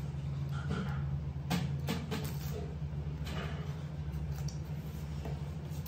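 Crisp crunching of raw cucumber being bitten and chewed: a few sharp crunches between about one and a half and three and a half seconds in, over a steady low hum.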